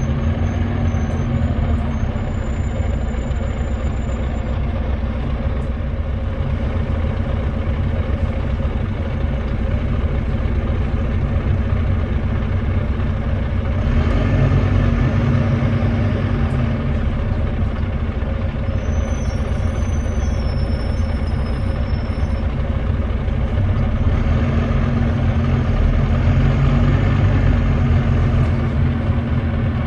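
A Volvo B9TL double-decker bus's Volvo D9B 9.3-litre diesel engine heard on board, running steadily with a deep drone. It grows louder about halfway through and again near the end, as if under load. The uploader describes the engine as misfiring and thrashing.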